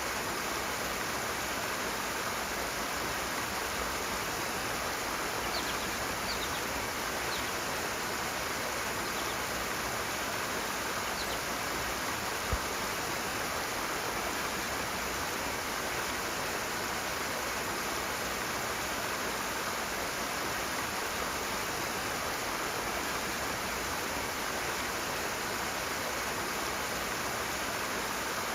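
Rushing water: a stream or cascade flowing in a steady, even rush. A few faint high chirps sound in the first half, and one soft thump comes about halfway through.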